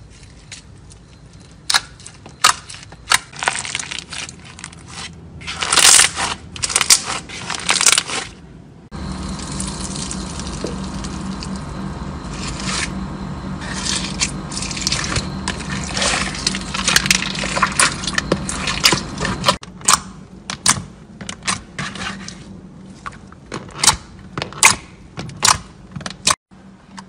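Slime being pressed, poked and kneaded by hand: wet squishing broken by many sharp pops and clicks, over several kinds of slime, from clear glitter slime to bead-filled red slime and soft pastel slime. A steady low hum runs under the squishing through the middle stretch.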